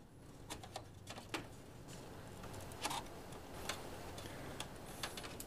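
Faint, irregular light clicks and rustling of hands handling the internal cables and plastic parts of an open desktop PC case.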